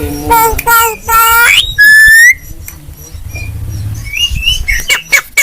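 Javan myna calling: a run of pitched squawking calls, then a loud clear whistle about two seconds in that rises at its end, followed by softer calls.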